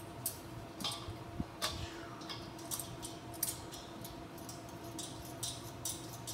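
Light, irregular clicks and ticks of metal fittings as a propane hose and regulator are worked onto a propane tank's valve, a few a second.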